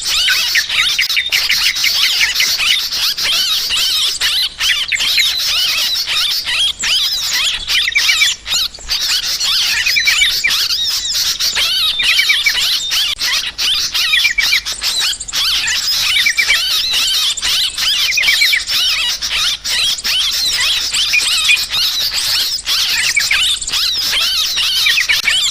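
Many yellow-vented bulbuls calling in agitated, noisy chatter all at once, a dense unbroken chorus of quick overlapping notes with no pauses.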